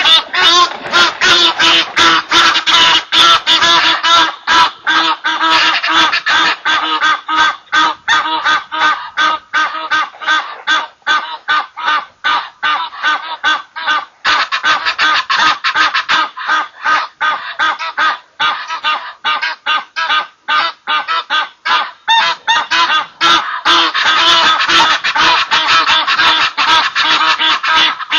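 Egyptian geese honking loudly and without a break, a rapid run of harsh calls at several a second.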